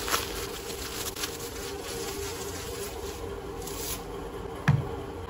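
Plastic bubble wrap crinkling and rustling as it is pulled off a diecast toy car, in a few spells, then near the end a single sharp knock, the loudest sound, as the toy car is set down on a wooden table. A steady low buzzing hum runs underneath.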